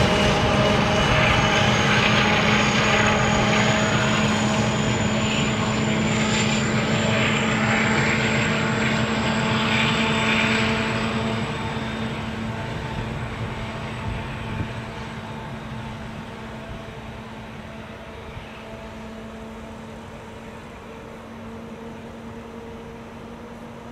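Class 232 "Ludmilla" diesel locomotive with a heavy train pulling away, its engine drone and a high turbocharger whine fading steadily. The sound grows faint in the second half.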